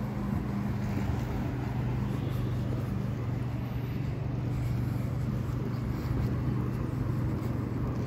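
An engine running at a steady speed: a low, even hum that holds its pitch throughout.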